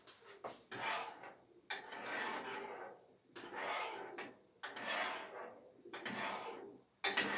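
A spoon scraping round an enamel saucepan of boiling millet as it is stirred: about six scraping strokes, roughly one a second.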